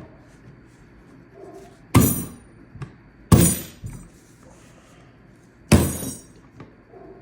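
Three sharp metallic whacks, each ringing briefly, as a hand strikes the side of an SKS rifle's trigger guard to snap the trigger assembly into the stock.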